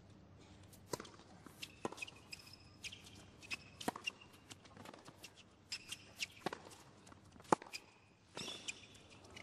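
Tennis rally on a hard court: the serve and then the ball struck back and forth by rackets and bouncing, a string of sharp hits with the loudest about three-quarters of the way in. Short high shoe squeaks on the court come between the shots.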